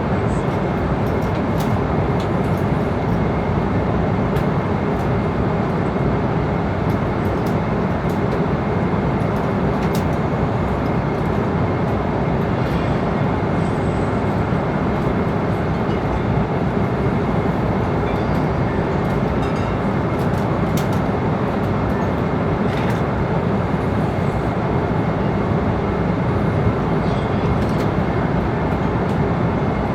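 Airliner cabin in flight: a steady, even rush of engine and airflow noise, heaviest in the low and middle range, with a faint steady high tone and a few light clicks.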